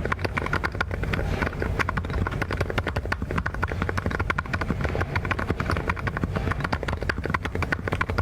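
Fast, continuous typing on a mechanical keyboard: a dense, even stream of key clacks with no pause.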